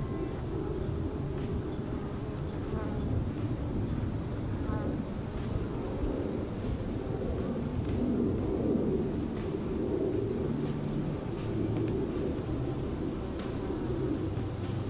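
Steady, high-pitched insect trilling with a slight pulse, over a low, uneven rumbling noise.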